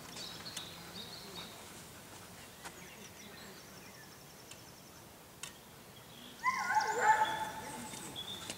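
A dog whines and yelps for about a second, a little past the middle, over faint bird chirps.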